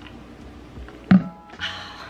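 A woman sipping iced coffee from a plastic tumbler, with one sharp knock and a brief ringing tone about a second in, followed by a short breathy exhale.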